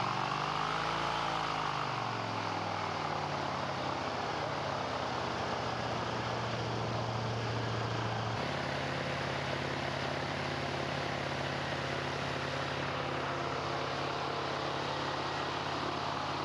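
Wind machine driven by a propeller running at full blast, with the rush of the air it drives. Its drone rises and falls in pitch over the first couple of seconds, then settles into a steady hum that shifts slightly about eight seconds in.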